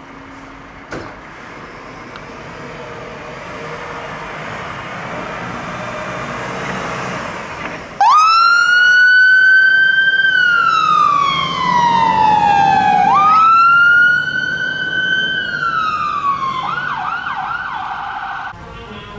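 A British fire engine's siren starts abruptly about eight seconds in: a slow wail that rises, falls, rises again and falls, then switches to a quick yelp near the end before cutting off suddenly. Before the siren, the appliance's engine noise builds steadily as it pulls out.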